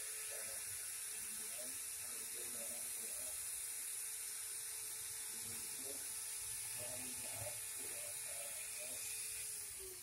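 Steady hiss with a faint steady hum that stops near the end, and faint distant voices.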